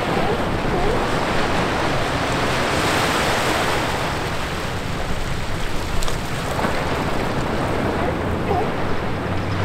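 Small ocean waves breaking and washing up a sandy beach between rocks. The surf swells about three seconds in.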